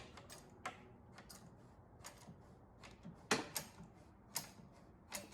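Cabinet jack being pumped to lift a cabinet, its mechanism giving short, sharp clicks at uneven spacing, about eight in all.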